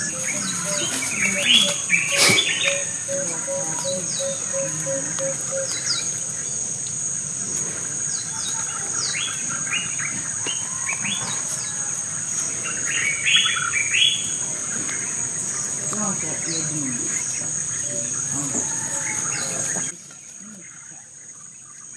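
Birds chirping in short repeated falling calls, in clusters, over a steady high-pitched insect drone; the drone and the rest of the background drop away suddenly near the end.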